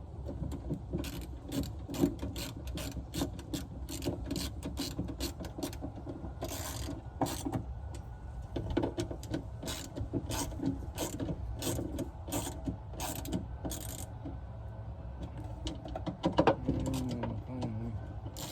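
Hand ratchet wrench clicking in quick runs as a bolt is driven in by hand, with a louder knock near the end.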